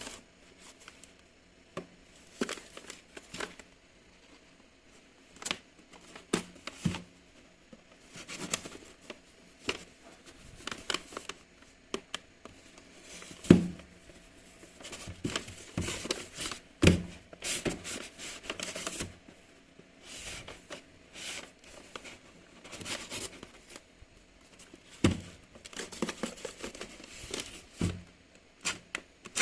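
Packaging being handled and unwrapped, crinkling and tearing in irregular rustles and clicks, with a couple of louder knocks about halfway through.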